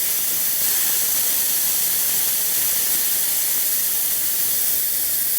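Steady, loud hiss of compressed air escaping from a high-pressure air compressor through its opened bleed/relief screw.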